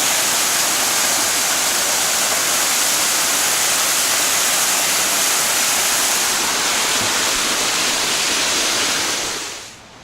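Small mountain waterfall rushing steadily, close by. The sound cuts off abruptly near the end.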